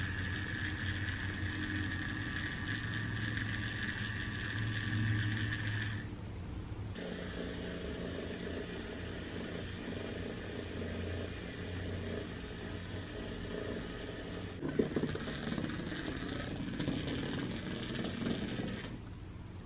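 Small electric motor of a HexBug Mouse robotic cat toy whirring steadily as it runs, breaking off about six seconds in and then going on, with a short knock near fifteen seconds.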